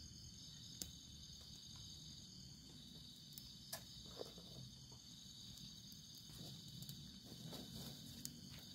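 Steady, high-pitched chorus of night insects such as crickets, with a few sharp snaps from the small twig fire being lit and tended.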